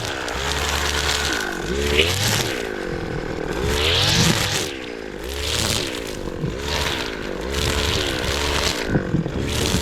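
Tractor engine working the field, its pitch dipping and rising again over and over, about every one and a half seconds, as the load comes and goes.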